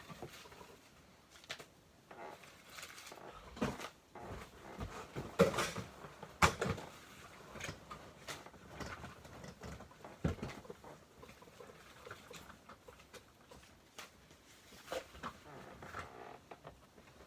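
Scattered knocks, clicks and rustles of small household objects being handled and moved about, with two sharper knocks near the middle.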